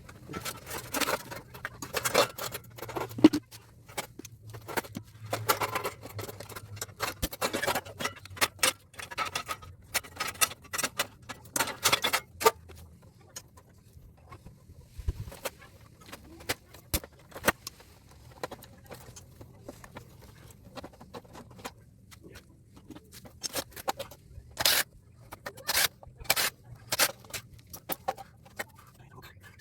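Irregular metallic clinks, taps and scrapes of hand tools and loose metal parts as an air-conditioner condenser is taken apart for scrap, thinning out for a while midway. A faint low hum stops about halfway through.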